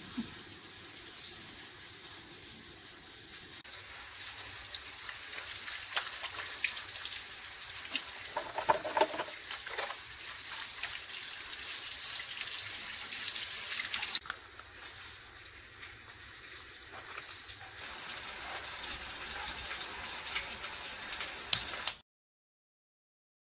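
Kitchen tap running into the sink, with splashing as hands are washed under the stream and small clinks. The sound cuts off suddenly near the end.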